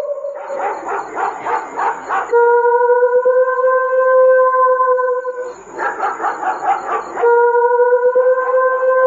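An eerie high wailing cry, offered as the voice of a kuntilanak. Bursts of fast, stuttering, laugh-like yelps alternate twice with long, steady held wails.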